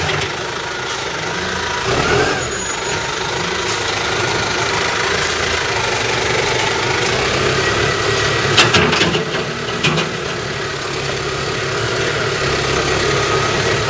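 New Holland T5050 tractor's four-cylinder diesel engine running steadily while the front loader bucket is worked. The engine note rises briefly about two seconds in, and a few sharp metallic knocks come near the middle.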